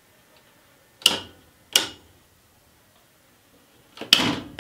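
Circuit breakers in a residential breaker panel being switched off by hand, one after another, to cut power to the panel: three sharp snaps, two close together about a second in and a third near the end.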